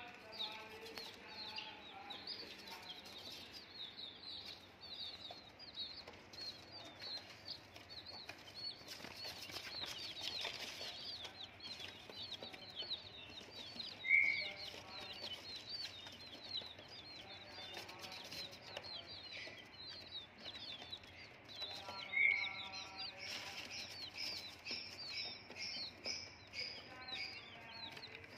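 A brood of young chicken chicks peeping constantly, a dense stream of short high cheeps overlapping one another, with a few louder single calls standing out about halfway through and again later.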